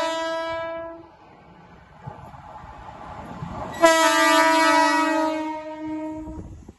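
Mumbai suburban EMU local train sounding its horn as it approaches: a short blast at the start and a longer steady blast about four seconds in, with the train's running noise growing between them.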